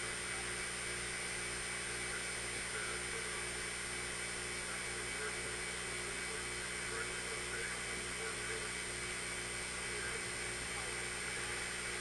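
Hurricane-force wind blowing steadily through palm trees and streets, a constant noisy rush with no distinct gusts or impacts, and a faint steady hum underneath.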